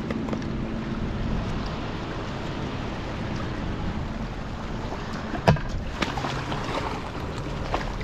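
Wind buffeting the microphone over water washing around rocks in the shallows, a steady rushing noise. A single sharp knock comes about five and a half seconds in, followed by a few lighter clicks.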